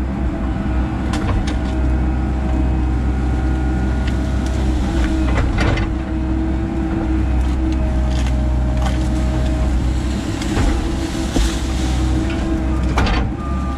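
Hydraulic excavator's diesel engine running steadily under load, heard from inside the cab, with sharp cracks and knocks as the bucket tears out tree stumps and roots, clearest about five seconds in and again near the end.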